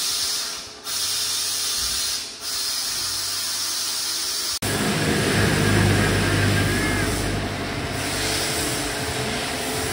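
Car wash sprayer hissing as it sprays the car, cutting out briefly twice. After a sudden change about halfway through, a louder, closer spray of snow foam from a hose over a steady low machine hum.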